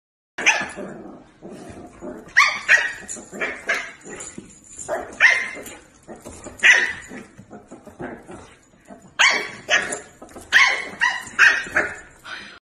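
Dog barking in a series of short, sharp barks and yips, coming in quick clusters with pauses between.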